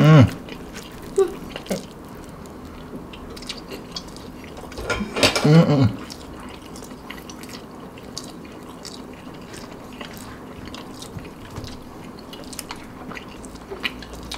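Faint wet mouth clicks and smacks from eating a long stretched strand of melted mozzarella. Two short vocal sounds stand out, one at the start and one about five seconds in.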